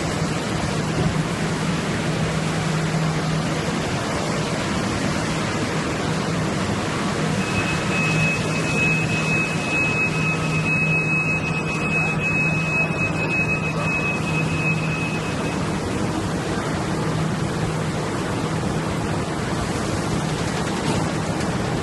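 Food-processing machinery running: a steady hiss with a low hum beneath it. A thin, high, steady whine joins in about seven seconds in and stops about eight seconds later.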